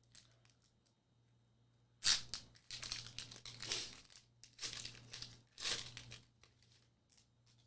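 Foil wrapper of a Pokémon TCG booster pack being torn open and crinkled in several rough bursts, starting about two seconds in, the first rip the loudest.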